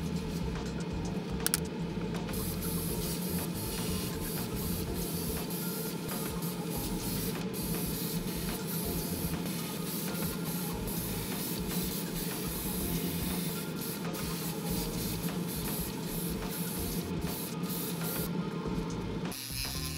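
Paint spraying: a steady low mechanical hum under an even hiss, as white paint is sprayed onto small resin garage-kit parts in a painting booth. It cuts off about a second before the end.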